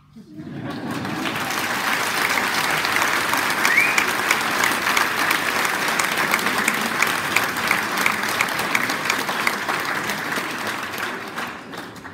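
Audience applauding. The clapping swells within the first second, holds steady, and thins out near the end.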